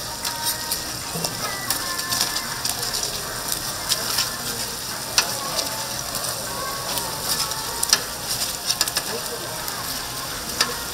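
Tteokgalbi, Korean minced short-rib patties, sizzling as they grill: a steady hiss with frequent sharp pops and crackles.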